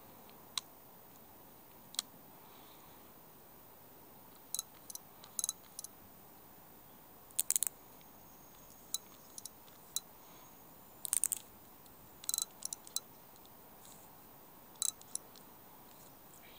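Sharp clicks and snaps from the mechanism of a Daiwa Jupiter-Z 2553 fixed spool fishing reel being worked by hand. They come singly and in short quick clusters at irregular intervals.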